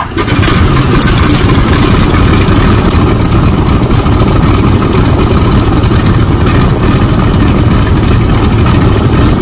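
Boeing Stearman biplane's radial engine running steadily just after starting, loud, with a fast even beat, heard from the open cockpit behind the spinning propeller.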